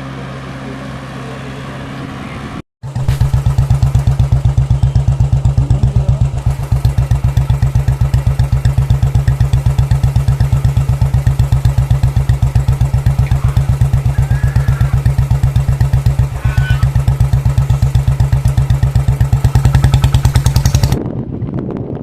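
Motorcycle engine running close by on an off-road ride, a loud, steady low pulsing that keeps an even rhythm. The sound rises in pitch at first and cuts out briefly about three seconds in. It drops away just before the end.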